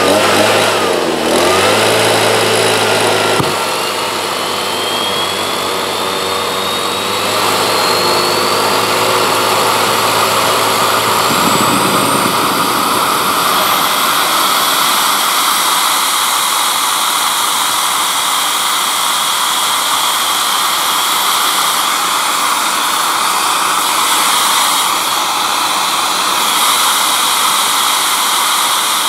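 Homemade turbojet built from a small turbocharger being started: a petrol leaf blower's engine runs, forcing air through it, while a thin whine rises steadily in pitch as the turbo spools up. About twelve seconds in, the blower's low hum drops away and a steady rushing jet roar carries on, the engine running on its own combustion.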